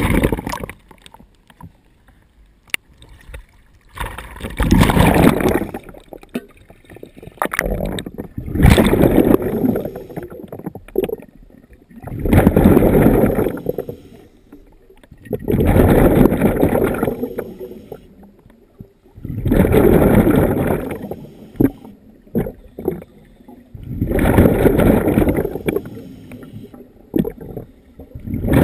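Scuba diver breathing through a regulator underwater: a rush of exhaled bubbles about every four seconds, with quieter gaps for each inhale between.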